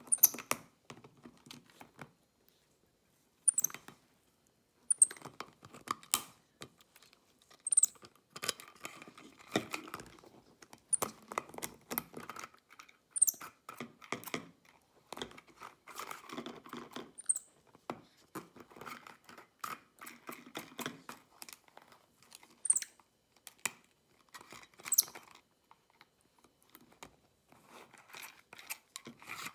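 Capuchin monkey handling a bottle and working its screw cap with hands and teeth: irregular bursts of clicks, scrapes and crinkling, broken by short pauses, with brief high squeaks now and then.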